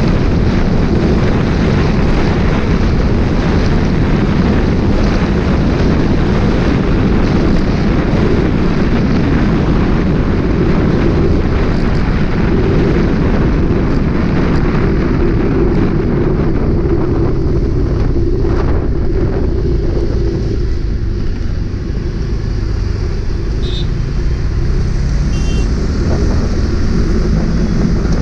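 Motorcycle riding at road speed: a steady loud rush of wind on the microphone with the bike's engine running beneath it.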